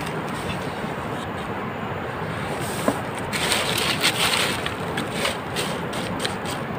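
Dry leaves and twigs rustling and crackling as hands work a rope snare on the forest floor, with a louder scuffle about halfway through and a few sharp snaps after it, over a steady background hiss.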